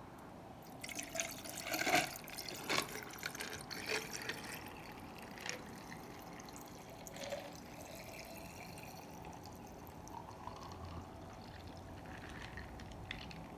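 Limeade poured from a plastic bottle into a glass carafe full of ice cubes, filling it. In the first few seconds, sharp cracks and clinks, as the ice cracks and shifts under the liquid, then a quieter, steadier pour.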